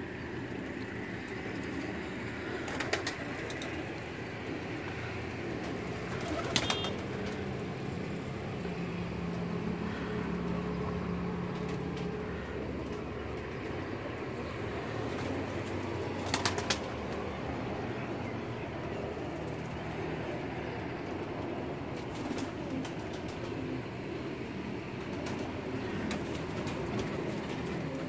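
Domestic pigeons cooing in their loft, a steady low murmur. A few sharp clicks stand out, the loudest about a third of the way in and again past the middle.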